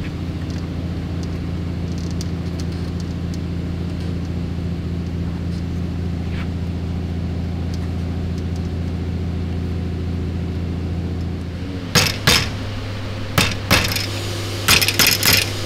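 Small hammer tapping the steel retaining tabs of a sheet-metal radiator grille to lock woven wire mesh screens in place. Sharp metallic taps start near the end, two pairs and then a quick run of several, over a steady low hum.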